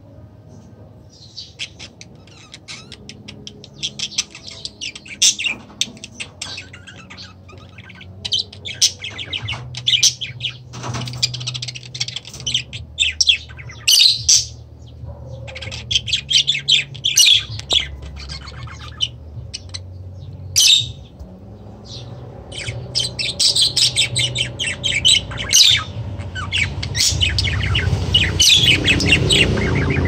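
Caged small parrots chirping and squawking in repeated clusters of short, shrill calls, over a low rumble that grows louder near the end.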